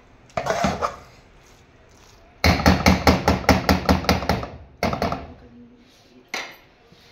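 Steel spoon stirring thick, creamy macaroni in a non-stick pan. It scrapes once, then knocks sharply against the pan in a quick run of about a dozen strokes, roughly six a second, with a few single scrapes and knocks after.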